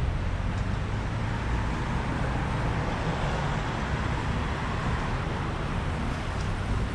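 Steady road traffic: a continuous mix of car and engine noise with a low rumble.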